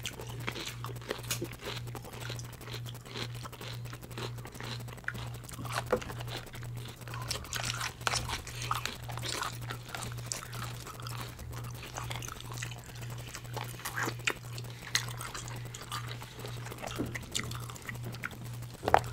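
Close-miked chewing and crunching of baked green-lip mussels, with many small wet clicks and crackles. A low hum pulses steadily about twice a second underneath.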